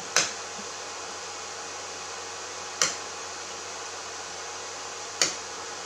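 Three sharp clicks of front-panel pushbuttons being pressed on an HP 3455A digital voltmeter, a few seconds apart, over a steady low hiss.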